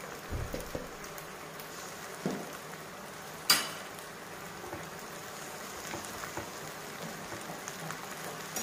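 Chopped okra frying in hot oil in a metal kadhai with a steady low sizzle. A few soft knocks come in the first second, and a spoon clicks sharply against the pan once, about three and a half seconds in.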